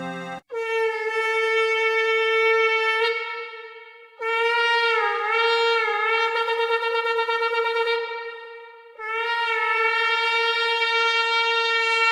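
A shofar sounding three long blasts, each held steady for about three seconds with brief breaks between them. The middle blast wavers in pitch.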